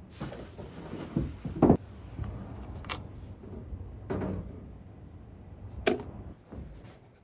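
A few irregular knocks and clatters, a second or more apart, the loudest about one and a half seconds in, over a low steady rumble.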